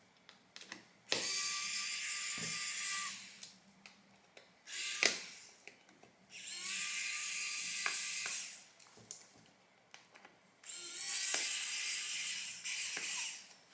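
Small electric hand tool run in three bursts of about two seconds each: a high-pitched whirr with a thin whine that sags as each burst stops. Small clicks come between the bursts.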